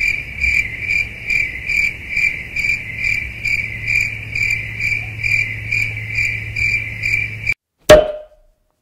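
Cricket chirping in a steady pulsed rhythm, a little over two chirps a second, over a low steady hum. It cuts off suddenly near the end, followed by a single sharp click.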